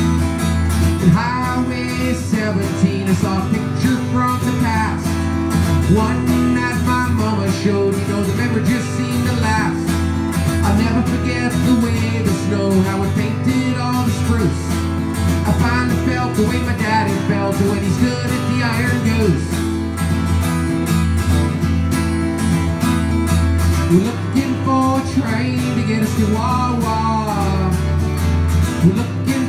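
Steel-string acoustic guitar strummed steadily in a folk song, with a man's voice coming in over it at times.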